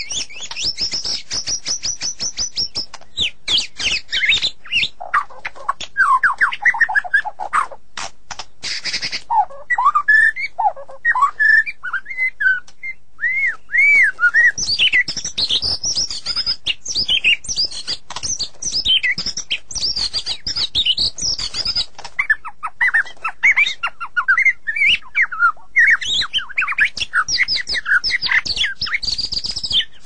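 White-rumped shama (murai batu) singing: an unbroken run of varied, fast whistled phrases that slide up and down in pitch, with dry clicking notes between them.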